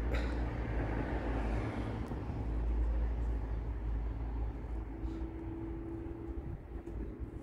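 Low, steady rumble of a vehicle, loudest about three seconds in, with a faint steady hum coming in about five seconds in.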